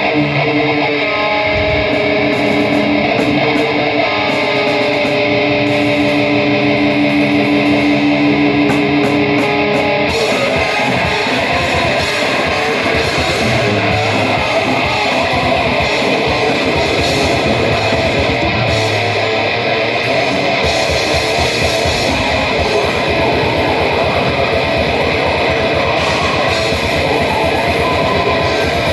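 A band playing loud live music with heavily distorted electric guitar. The opening is held, droning chords; about ten seconds in, it thickens into a denser, full-band wall of noise.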